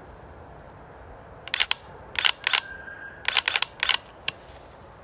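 Mantis Blackbeard dry-fire system in an AR-15-style rifle clicking with rapid trigger pulls: about a dozen sharp clicks in quick bursts, beginning about a second and a half in.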